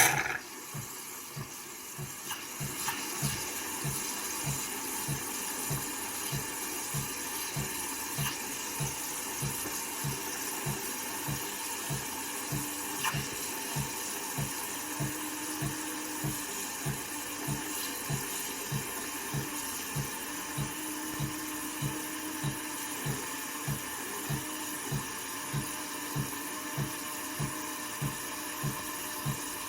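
A De'Longhi Dinamica Plus bean-to-cup coffee machine running, its pump pulsing in a steady rhythm about one and a half times a second over a constant hiss.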